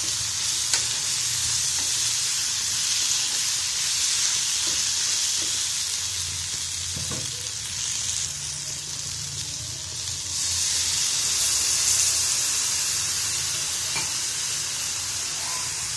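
Minced mutton (keema) with onions and spices sizzling in a frying pan as it is stirred with a metal spoon, then a little water goes in. The steady sizzle dips a little past halfway and comes back louder.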